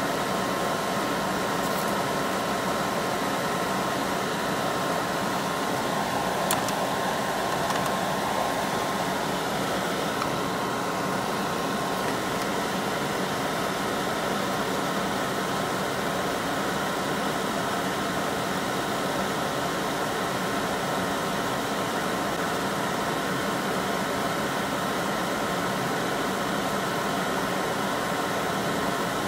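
Small vent fan running steadily, a constant hum with hiss, with one faint click about six and a half seconds in.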